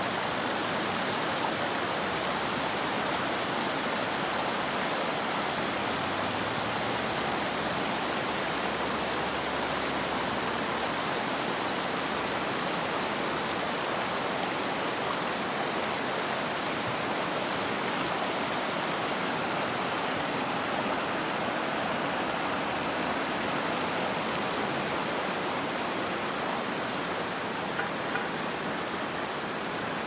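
River water rushing over rocks and rapids, a steady even hiss that does not let up.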